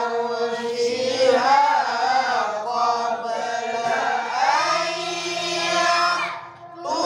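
Quran recitation chanted in the melodic tilawah style, long notes gliding up and down, with a short breath pause about six and a half seconds in before the chant resumes.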